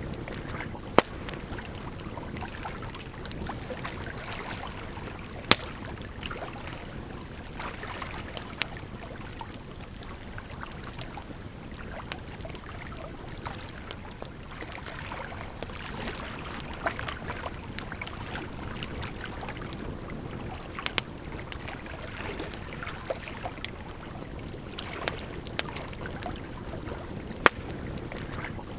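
Burning firewood crackling, with scattered sharp pops, over a steady wash of running water.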